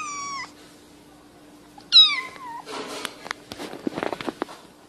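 Kitten meowing twice, high calls that fall in pitch; the second, about two seconds in, is the louder. Rustling with a few sharp clicks follows.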